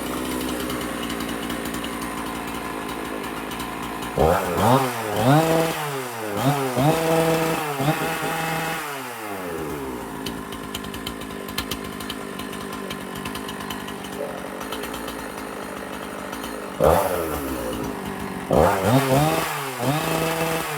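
Husqvarna 268 two-stroke chainsaw running at idle, revved up and down in a run of quick throttle blips about four seconds in, settling back to idle, then revved again in another run of blips near the end.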